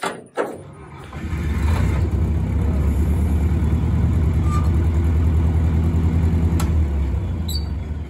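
Engine of an old John Deere combine starting up about a second in and running steadily, easing off near the end.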